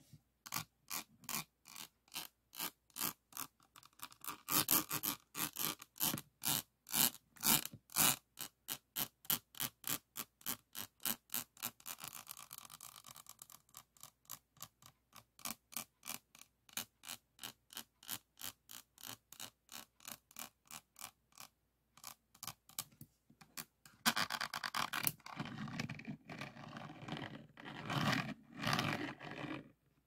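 A diamond-painting pen scraping back and forth over the rows of drills on a diamond-painting canvas, giving a fast run of scratchy strokes, several a second. The strokes come quicker about halfway through, stop briefly, then return denser and louder near the end.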